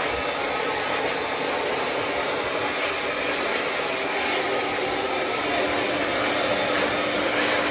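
BaBylissPRO hand-held hair dryer running steadily, blowing air through hair, with a steady motor hum under the rush of air.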